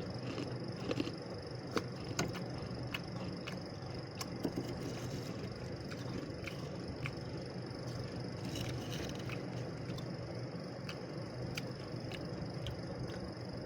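Freezer frost crunching and crackling in sharp, irregular clicks, a few a second, over a steady low hum.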